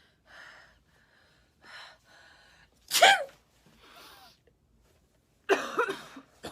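A woman sneezing from a head cold: a few short catching breaths build up to a loud sneeze about three seconds in, then after another breath a second loud sneeze near the end.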